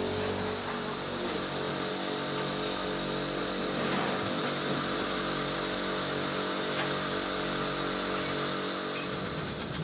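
Narrow-gauge steam locomotives blowing off steam at their safety valves: a steady hiss over a low hum.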